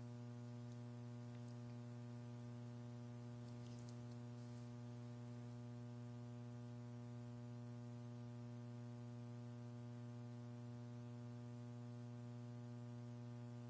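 Steady electrical mains hum, a low constant tone with a row of evenly spaced overtones, with no change throughout.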